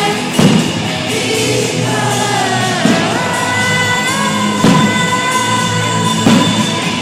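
Music with a singer, and a loud low thump every couple of seconds.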